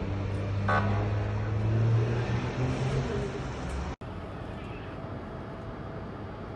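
A vehicle engine runs with a steady low hum that swells slightly about two seconds in. A short pitched sound comes about 0.7 s in. An abrupt cut about four seconds in gives way to an even background rumble.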